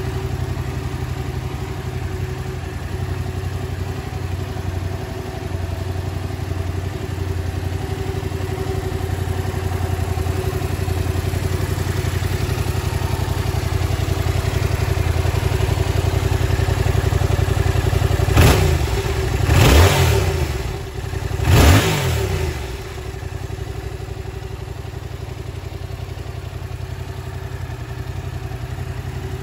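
Yamaha YZF-R7's 689 cc parallel-twin engine idling, then revved three times in quick succession about two-thirds of the way through, each rev climbing and dropping, before it settles back to a steady idle.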